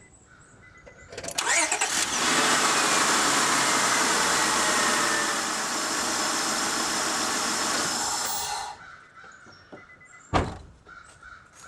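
1999 Honda Odyssey's 3.5-litre V6 cranking briefly and catching about a second in, running at idle with a coil pack just swapped for a good one to cure a random misfire, settling a little quieter partway through, then shut off. A single knock follows shortly after.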